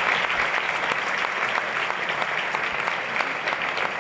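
Audience applauding: dense, steady clapping from a large crowd, easing slightly toward the end.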